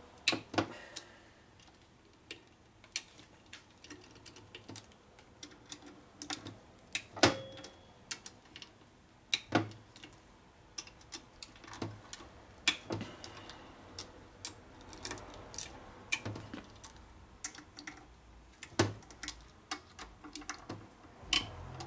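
Irregular metal clicks and clinks of a hand tool working the screws of a 1977 Harley-Davidson Sportster Ironhead engine's aluminium cam cover as they are tightened by hand. One louder clink with a short metallic ring about seven seconds in.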